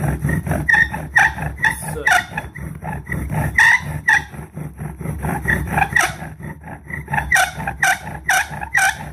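Bow drill in use: a tamarack spindle driven back and forth by the bow, squeaking and grinding against the hearth board and socket in quick repeated strokes.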